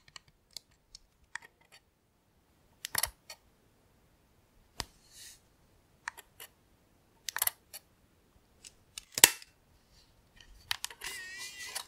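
Scattered sharp clicks and light ticks from a handheld camera being handled and its buttons pressed, a dozen or so at uneven intervals, with a brief soft rustle near the end.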